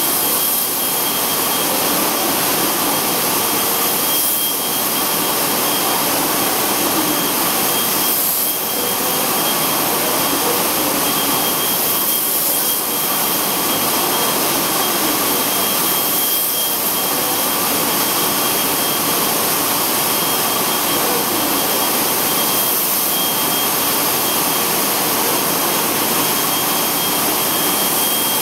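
Steady, loud rushing hiss of air in a robotic spray-painting booth, swelling slightly about every four seconds, with a faint high whine held throughout.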